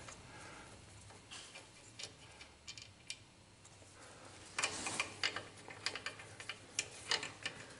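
Hand ratchet clicking as intake manifold bolts are backed out: a few light ticks at first, then from about halfway through a quicker run of clicks.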